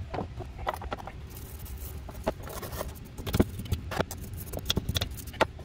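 Small wire brush scrubbing old paint off the metal body of a 1985 Yamaha VMax brake master cylinder: quick, uneven scratching strokes.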